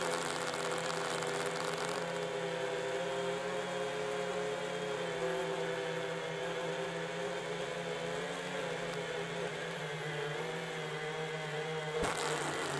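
FPV quadcopter's brushless motors and propellers whining steadily, heard from the onboard camera, the pitch wavering slightly with the throttle. Near the end the steady whine breaks off with a knock as the drone comes down near the ground.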